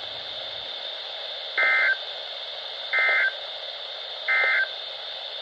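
Three short, identical bursts of Emergency Alert System digital data tones, each a brief warbling buzz about a second and a half apart, over steady radio hiss. This is the SAME end-of-message code sent three times, marking the close of the alert broadcast.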